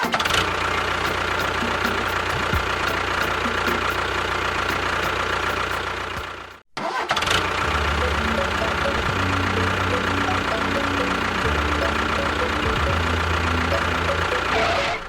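Small motor running steadily. It cuts out sharply about seven seconds in, then runs on with a low hum that steps up and down.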